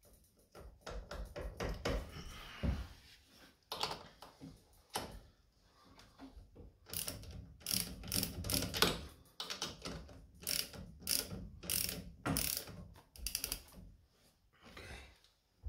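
Socket ratchet with a 17 mm socket clicking in short repeated runs as the scooter's clutch nut is run down onto the spindle, snugged up before final torquing.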